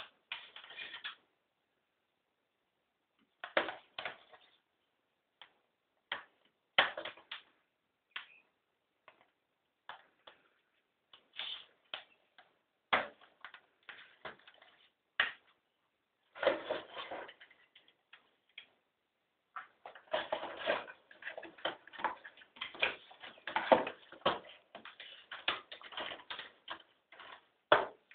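Handling noise from unpacking a boxed handheld computer and its accessories: scattered rustles, knocks and clicks of cardboard and plastic with short silent gaps, becoming near-continuous rustling in the last third.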